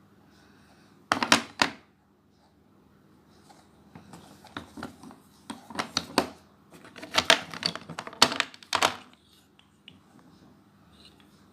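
Slate items being unpacked and handled, clicking and scraping against each other and their packaging. There is a short burst about a second in, then a run of clicks and clatter from about four to nine seconds.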